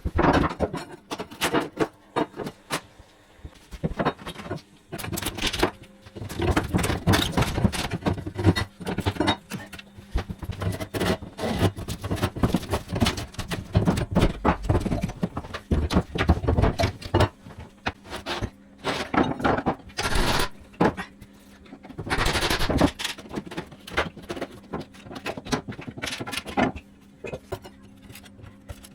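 Timber skirting boards being levered off a wall: irregular knocks, scrapes and cracks of wood and tools.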